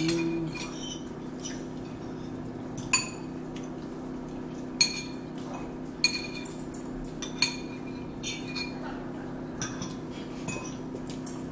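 Metal spoon and fork clinking and scraping against bowls as two people eat: scattered sharp clinks with a brief high ring, about one every second or two. A steady low hum runs underneath.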